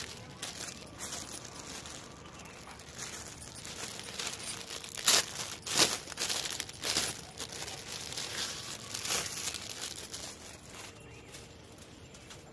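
Thin clear plastic packaging crinkling and rustling as a cloth chunri is handled and drawn out of it, with a few louder crackles about five to seven seconds in, dying down near the end.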